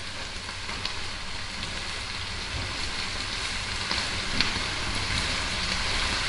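Fusilli and speck sizzling in a frying pan over a raised gas flame as they finish cooking in the sauce, stirred with a wooden spoon; a steady frying hiss that grows slightly louder, with a few faint knocks of the spoon.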